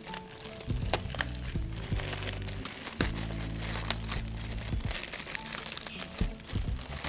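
Background music with steady low notes, over the crinkling, rustling and sharp clicks of packaging being handled and opened.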